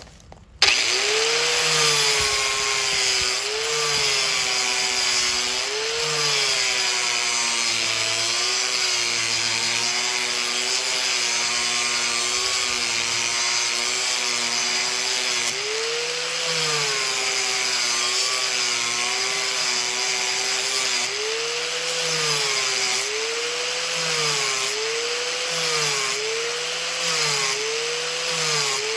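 Electric grinder sharpening a steel mower blade: the motor starts about half a second in and runs with a hissing grind, its pitch sagging and recovering each time the blade is pressed against it, about once a second near the end.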